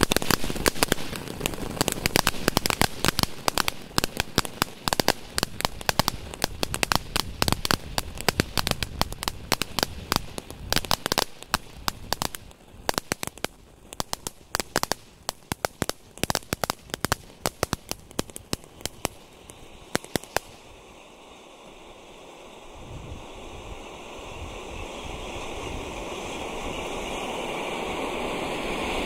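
Fengshui Cascade firework going off: a dense, irregular run of sharp pops and cracks, many a second, that stops about twenty seconds in. After it, a steady rushing noise grows gradually louder.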